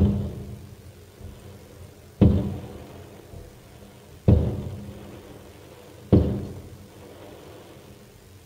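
Fireworks aerial shells bursting: four deep booms about two seconds apart, each trailing off in a long echo.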